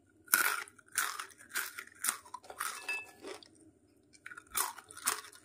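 Crisp homemade rice kurkure being bitten and chewed: a run of sharp crunches about two a second, a pause of under a second, then more crunching near the end.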